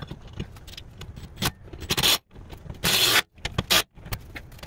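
Ratchet with an Allen bit driving the bolts of an air-spring bracket into the truck frame: a few short rasping bursts of ratcheting, the longest about three seconds in, among small clicks of metal.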